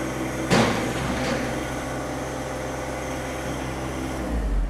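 John Deere 1025R compact tractor's three-cylinder diesel running steadily, with a sharp metallic clunk about half a second in and a smaller knock a moment later as the front loader bucket is fast-dumped to its stop. Near the end the engine note deepens and grows louder as the hydraulics curl the bucket back up.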